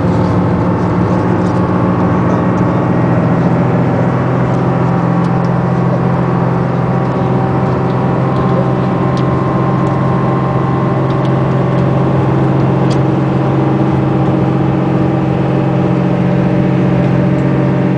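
Engine and road noise heard from inside the cabin of a moving road vehicle: a steady hum that holds an even pitch throughout.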